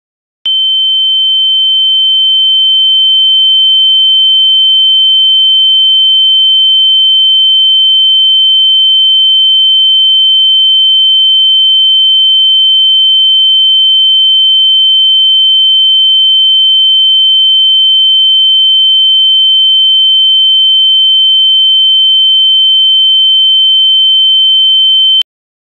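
A single loud, high-pitched pure electronic tone, held at one unchanging pitch for about 25 seconds, starting and cutting off abruptly.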